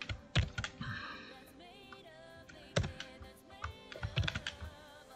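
Scattered sharp clicks and taps from a computer keyboard and mouse, with several in quick succession near the end, over quiet background music.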